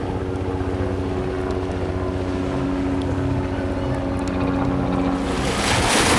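A motor engine running at a steady pitch with a low throb. About five seconds in, a loud rush of wind or surf noise swells over it.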